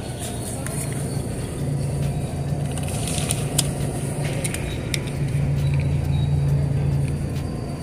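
Steady low rumbling hum that swells a little in the second half, with a few light clicks about three to four seconds in.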